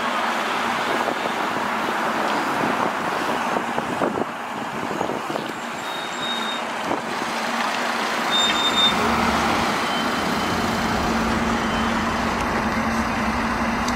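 City street traffic: vehicles running and passing in a steady wash of road noise. A steady low engine drone from a heavy vehicle joins about two-thirds of the way through.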